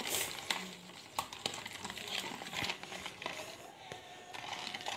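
Wire beater whisk stirring a thin liquid mix in a plastic bowl, with irregular light clicks and ticks as the wires knock against the bowl.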